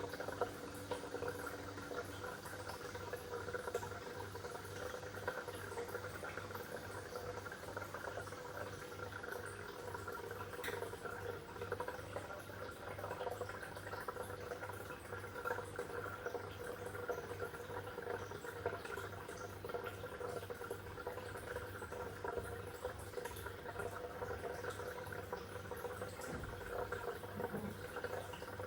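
Aquarium water bubbling and trickling steadily, with a steady low hum underneath.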